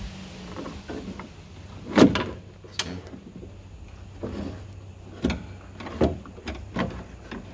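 Knocks, clicks and plastic rattles of a part being worked loose and lifted out of a Mercedes-Benz car door, with a loud knock about two seconds in and several smaller knocks after.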